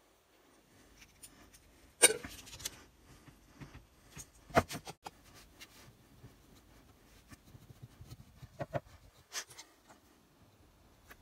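Plastic spreader scraping and tapping as two-part body filler is mixed on cardboard and spread onto an old vice's metal body, with a handful of sharp clicks and knocks, the loudest about two seconds in.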